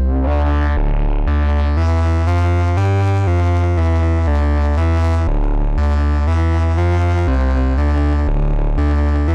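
Synthesizer sequence played through the Glitchmachines Subvert distortion plug-in: a heavy bass line and dense, buzzing upper harmonics, the notes changing about twice a second.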